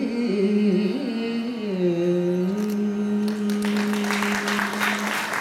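Closing phrase of a Carnatic kriti: the melody steps through a few notes and settles onto one long held note. Audience applause breaks out about three seconds in, over the final note.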